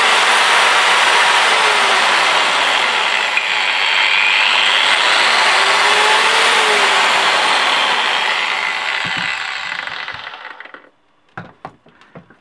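Angle grinder for 180 mm discs, fitted with a soft-start module, running freely at full speed with no disc on the spindle. It is switched off about eight seconds in and winds down over a few seconds, followed by a few light knocks near the end.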